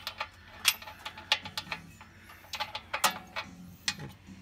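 Irregular light metal clicks and taps, about a dozen, from bolts and hand tools being worked at a transmission bell housing and flex plate.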